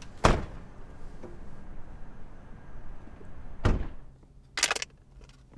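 Two car doors shut, one about a quarter second in and the second about three and a half seconds later, each a single solid thunk. A short rustle follows near the end.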